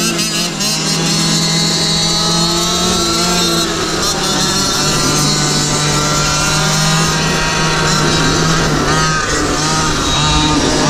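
GoPed GoQuad's small two-stroke engine running hard at high revs under race throttle, heard from on board; the pitch dips briefly about half a second in and again near nine and ten seconds in as the throttle eases for corners.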